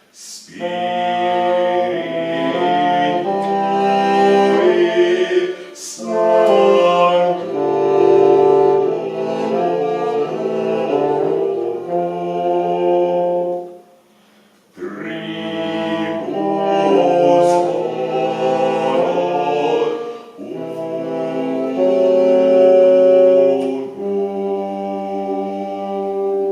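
Live early-music trio playing: sustained melodic phrases in several voices, broken off by a short pause about halfway through.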